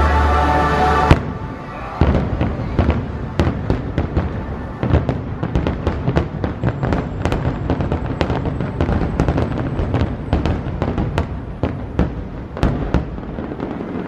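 Fireworks bursting in quick succession: a dense run of sharp bangs and pops, several a second. Show music with a deep bass note stops abruptly about a second in, and the bursts carry on after it.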